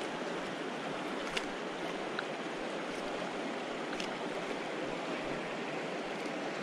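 River water flowing steadily past, a constant rushing noise, with a couple of faint ticks.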